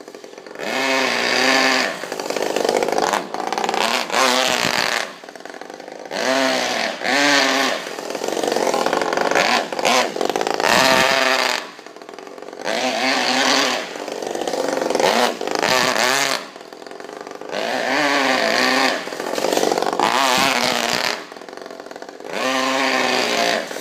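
Saito FA-50 single-cylinder four-stroke glow engine in an RC car, revving up and dropping back again and again, with a burst of throttle every second or two.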